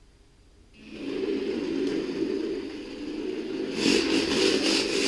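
Small electric motor of a Drift Package Nano micro RC drift car whirring steadily as the car is driven. It starts about a second in and gets louder near the end.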